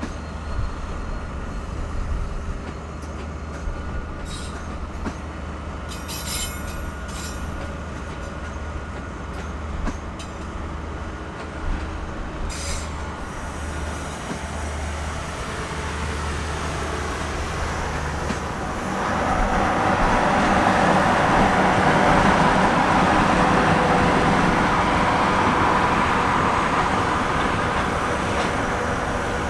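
Freight train hauled by EF-class electric locomotives rolling by: a steady low hum with a few sharp clicks and squeals from the wheels on the rails. From about two-thirds of the way through, the rumble of the wagons grows clearly louder and stays up.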